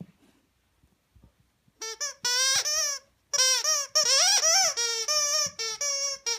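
A dog chewing a plush squeaky toy, squeaking it over and over: a quick run of squeaks starting about two seconds in, each bending up and down in pitch.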